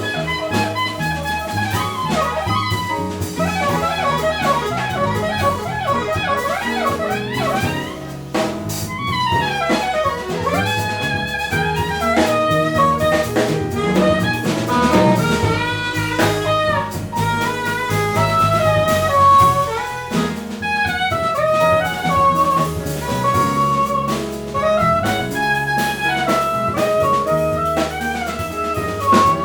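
Live jazz quartet playing: a saxophone leads with a melodic line of quick runs and bends over piano, double bass and drum kit.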